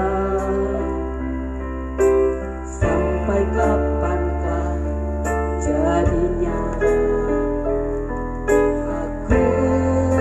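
A woman singing into a microphone over a Yamaha electronic keyboard accompaniment. The keyboard holds sustained bass notes and chords that change every two to three seconds.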